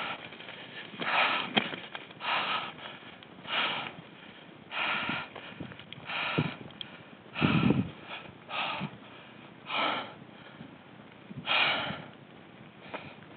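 A cyclist breathing hard with exertion, one loud rhythmic puff of breath about every second and a bit, while pedalling a heavily loaded bicycle. About halfway through, one breath comes with a low bump, the loudest sound here.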